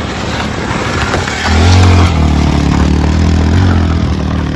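Motorcycle engine pulling hard on an off-road stream-crossing trail, coming in loud and steady about a second and a half in over a rushing noise of water and wind, then easing off near the end.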